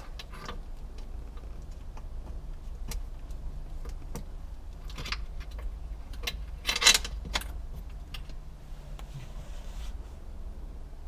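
Small hard parts being handled: scattered clicks and rattles of plastic and metal pieces such as wiring connectors and mounts, with a louder clatter about seven seconds in. A low steady hum runs underneath.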